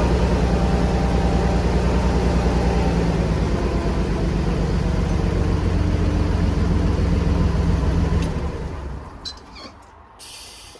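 A 1975 drill rig's engine running steadily, then shut off about eight seconds in and dying away. A couple of faint clicks follow near the end.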